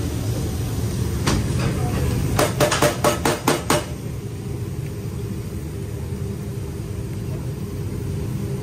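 Metal spatula clacking against a flat-top griddle in a quick run of about eight sharp strikes while chopping chicken, then stopping. A steady low kitchen rumble runs underneath.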